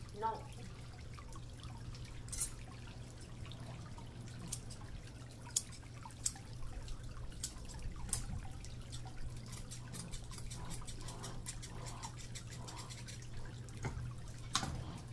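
Grooming scissors snipping the fur on a small dog's head and face: irregular sharp metallic snips, densest in the middle, over a steady low hum.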